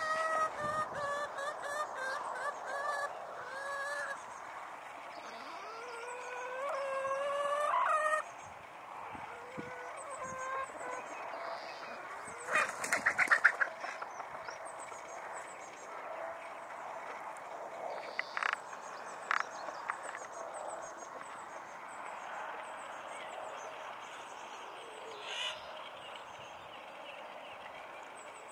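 Farmyard poultry calling in drawn-out, wavering cries that rise in pitch over the first several seconds and then stop abruptly. After that the yard is quieter, with a brief run of loud rapid pulses about halfway and faint chirps of small birds.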